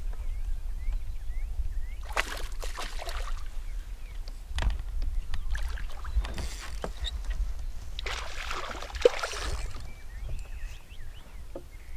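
Water splashing in two bursts, a hooked fish thrashing at the surface beside the boat as it is played in on a bent rod. A steady low rumble runs underneath, and there is a sharp click near the end of the second splash.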